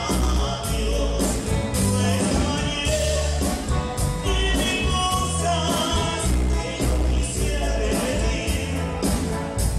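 Live cumbia band playing: bass and drums keep a steady dance beat under keyboard and saxophone, with singing.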